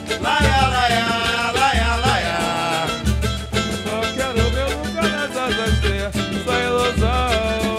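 Live samba/pagode band playing: a strummed cavaquinho and pandeiro over a deep tantan drum beating about once a second, with a sung melody line in the first two seconds and again near the end.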